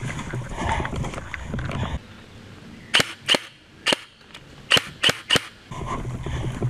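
Airsoft rifle fired in single shots: six sharp cracks in about two and a half seconds, starting about three seconds in.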